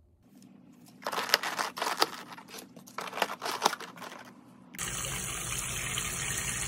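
Disposable plastic food containers and their lids being handled, a run of sharp clicks and crinkles. Then, near the end, tap water running steadily onto beef short ribs in a steel pot.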